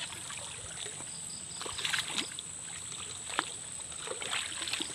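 Shallow creek water sloshing and splashing as someone wades through it, with a few sharper splashes about two seconds in, at three and a half seconds, and near the end. A steady high-pitched whine runs underneath.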